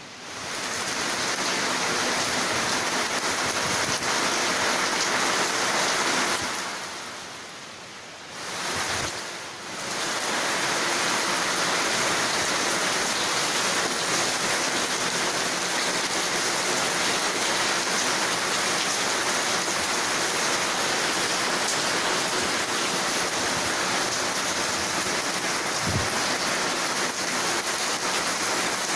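Heavy rain pouring down steadily. It swells up at the start, fades out for a couple of seconds about seven seconds in, then comes back and holds steady. A single low thump near the end.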